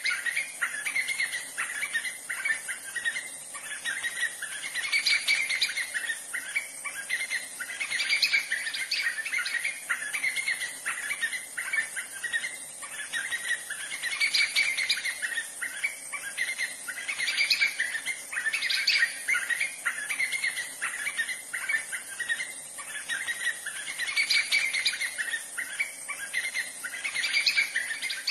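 White-fronted nunbird singing: phrases of rapid notes repeated about every three seconds.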